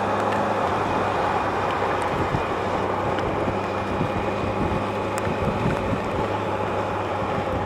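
Yamaha FJR1300 motorcycle at steady highway speed in heavy rain: the inline-four engine runs with a steady low hum under a constant rush of wind and rain noise.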